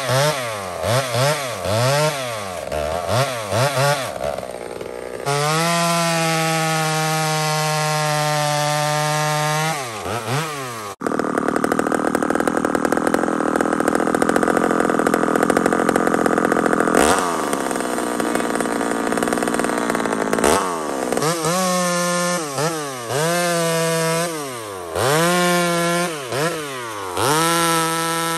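Two-stroke Homelite chainsaw revved in quick repeated blips, then held at a steady high pitch at full throttle. About eleven seconds in it runs rougher and noisier for several seconds as it cuts under load, then goes back to quick throttle blips near the end.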